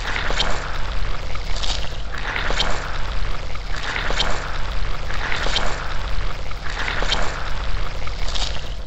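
Cartoon car-wash sound effect of a rotating brush scrubbing a car: a wet swishing that swells and fades roughly every second and a half over a steady low machine hum.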